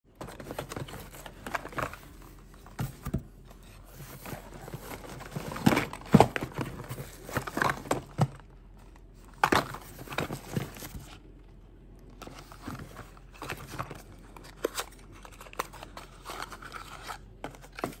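Small cardboard toy boxes rustling, scraping and knocking together as hands sort through them in a cardboard carton, with clear plastic packing crinkling. The sounds come in irregular bursts, loudest about six seconds in.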